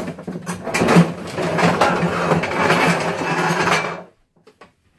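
Metal-framed chair being dragged, its legs scraping across the floor with a rough, rattling grind that stops abruptly about four seconds in.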